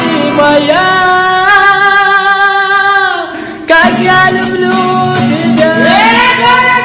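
A song: a voice singing long held notes over instrumental accompaniment, with one long sustained note in the first half and another rising into a held note near the end.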